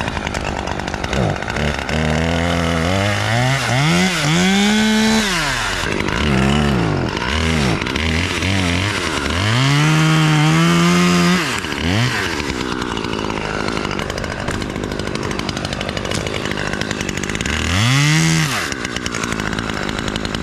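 Husqvarna chainsaw throttled up to full speed and back down three times, cutting into the fir trunk. The longest and loudest run is about ten seconds in, and a short burst comes near the end.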